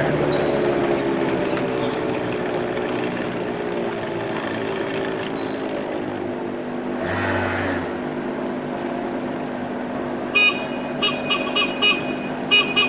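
Small open three-wheeled GoCar's engine idling steadily in street traffic. In the last couple of seconds a vehicle horn toots in a quick run of about seven short beeps.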